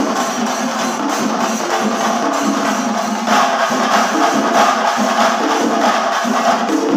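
Chenda melam: a large ensemble of chenda drums beaten with sticks in a dense, continuous rhythm, growing louder about three seconds in.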